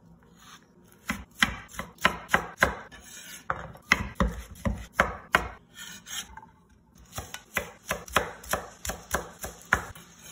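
Chef's knife chopping on a wooden cutting board: quick runs of sharp strokes, about three a second, with a short pause a little past the middle.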